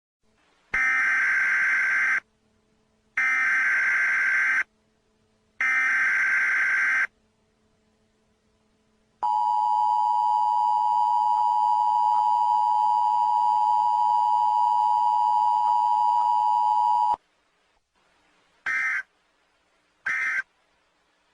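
Emergency Alert System signalling: three buzzing digital data bursts of about a second and a half each, then the two-tone EAS attention signal held steady for about eight seconds, then short end-of-message data bursts near the end.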